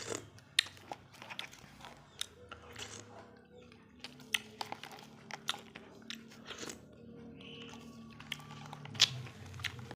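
Close-miked eating of a durian ice dessert: chewing and wet mouth sounds, with short sharp clicks of a spoon scattered throughout, the loudest about nine seconds in.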